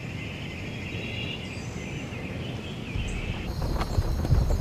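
Steady chorus of night insects chirring as a high, even band. About three and a half seconds in it gives way to a higher-pitched insect chorus, and a low rumble builds near the end.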